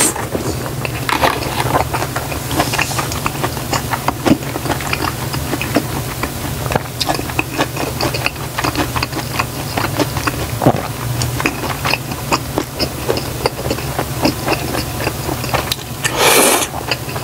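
Close-miked chewing of a mouthful of jajangmyeon noodles, a steady stream of small wet mouth clicks, over a steady low hum. A short breathy rush comes near the end.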